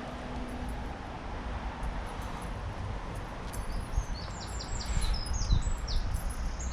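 Steady outdoor background of wind buffeting the microphone, with a few low knocks. A songbird chirps a quick run of short high falling notes in the second half.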